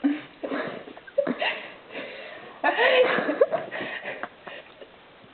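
Short bursts of non-word vocal sounds from people taking turns in a burping contest, with the longest and loudest about three seconds in.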